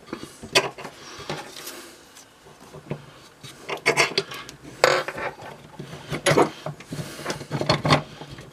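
Irregular metallic clinks and knocks as a small bench vise is loosened by its sliding T-handle and a plywood board is worked free of its jaws, the strongest knocks about five and six and a half seconds in.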